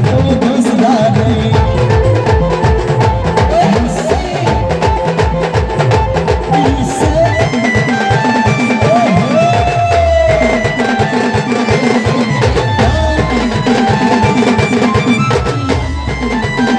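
Live folk band music: fast, steady drumming with a sustained melody line above it.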